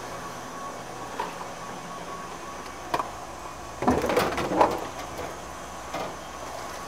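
Light kitchen handling sounds over a faint steady hum: a few single clicks, then a brief clatter of knocks and rattles about four seconds in.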